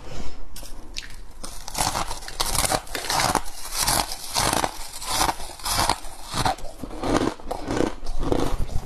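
Hard freezer ice being bitten and chewed close to the microphone: a run of loud crisp crunches, roughly two a second.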